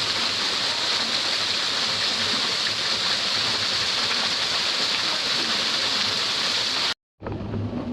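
Steady rush of falling water from a small canyon waterfall. It cuts off abruptly about seven seconds in, and a quieter, lower rush follows.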